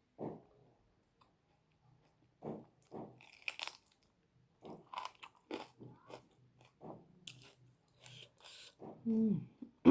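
Close-up eating sounds: food being bitten and chewed in short separate mouthfuls, with a few crisp crunches. Near the end comes a short hum that falls in pitch.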